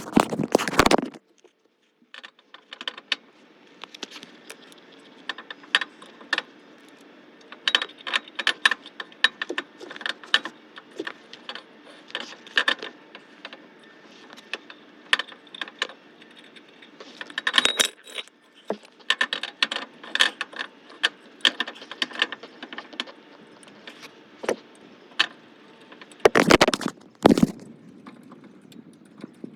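Metal tools and parts clinking and rattling in irregular clicks during work on the car's rear suspension and brakes, with two louder clattering bursts near the end.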